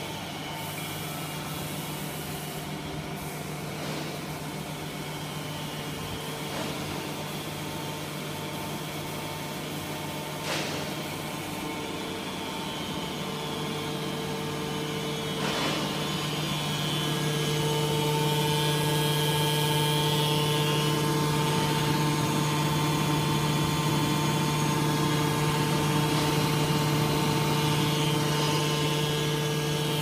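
Electric motor and hydraulic pump of a can baler's power unit running with a steady hum, getting louder a little past halfway through. A few faint knocks sound along the way.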